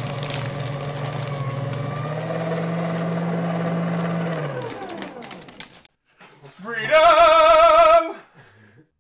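A steady droning tone slides down in pitch and dies away about five seconds in. After a moment of near silence, a loud sung 'aah' with strong vibrato is held for about a second.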